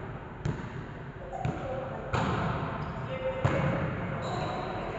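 Volleyball being struck by hand during a rally: about four sharp hits, each ringing out in the echo of a large hall.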